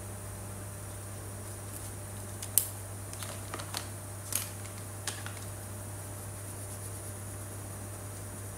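A few sharp plastic clicks and clatters, spread over about three seconds, as one felt-tip marker is put down and another picked up from the set. A steady low hum runs underneath.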